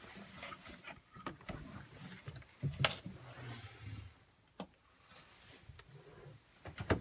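Small front-opening boat fridge under a berth being opened and shut: its door and latch click, with rustling handling noise, and a sharp click near the end as the door latches closed.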